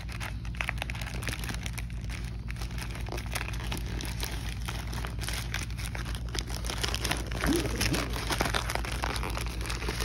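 Plastic mailer bag crinkling and rustling with many quick crackles as it is handled and pulled open by hand.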